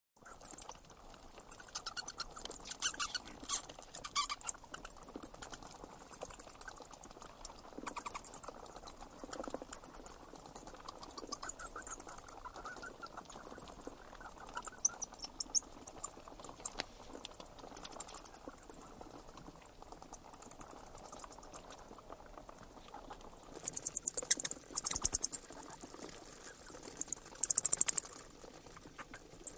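Bats chittering: bursts of rapid high-pitched squeaks and clicks, each a second or so long, coming every one to two seconds.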